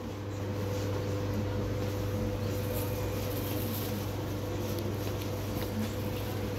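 Steady low machine hum with a fainter, higher steady tone above it, over the even background noise of an indoor market hall.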